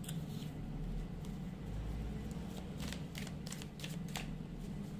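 Tarot deck being shuffled by hand: soft card handling, then a run of quick card slaps in the second half, over a low steady hum.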